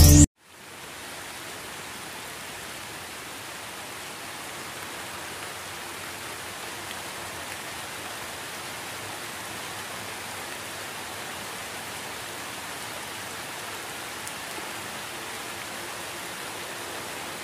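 Steady rain falling, an even hiss without distinct drops, fading in during the first second.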